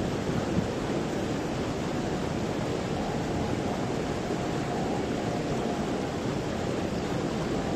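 Fast river water rushing and churning along a concrete embankment, a steady, even rush of noise.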